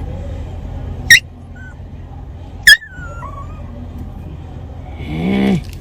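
A dog giving two sharp, high yelps about a second and a half apart, each trailing off in a short falling squeal, then a drawn-out voiced sound near the end.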